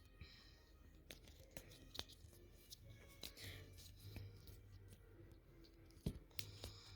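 Faint, scattered clicks and rattles of a plastic puzzle cube being turned in the hands, with a sharper click about six seconds in.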